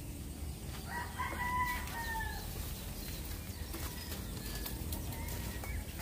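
A rooster crows once, a single call of about a second and a half starting about a second in, over a steady low background rumble.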